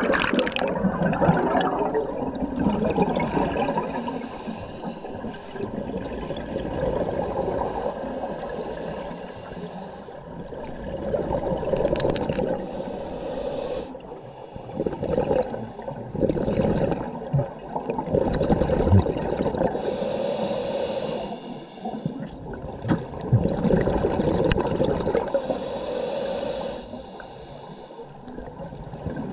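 Scuba diver breathing through a regulator underwater: the hiss of each inhale and the bubbling rush of exhaled air, repeating in cycles a few seconds apart.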